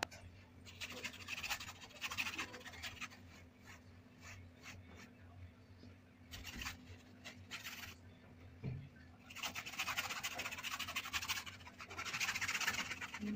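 Bristles of a flat paintbrush scratching across canvas as acrylic paint is laid on in dry, streaky strokes. The strokes come in several bursts of a second or two each, the longest and loudest near the end.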